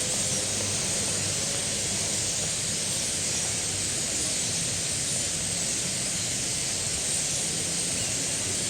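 Steady, even hiss with no separate bird calls standing out.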